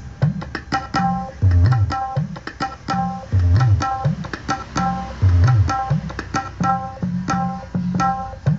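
Sampled kendang drum strokes from a phone's Real Kendang app, set to the ketipung, tapped out in a quick repeating rhythm through a small speaker set. Deep bass notes bend in pitch about every two seconds.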